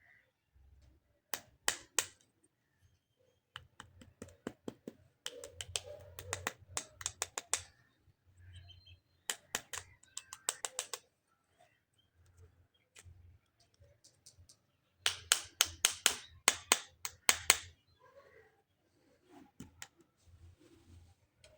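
Hard plastic toy parts clicking and clattering as they are handled, in quick runs of sharp clicks with pauses between; the longest and loudest run comes about fifteen seconds in.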